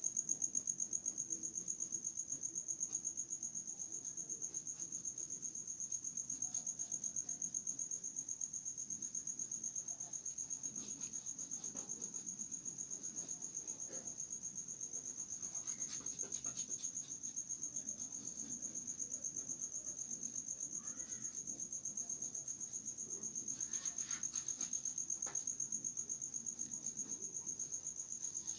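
A cricket trilling: one unbroken, high, fast-pulsing trill, with a faint low hum beneath it and a few soft clicks.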